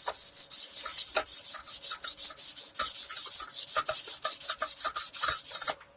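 600-grit sandpaper on a sanding block rubbed back and forth over the frets of an electric guitar neck, smoothing the fret tops left rough by the fret file: quick, even rasping strokes that stop suddenly near the end.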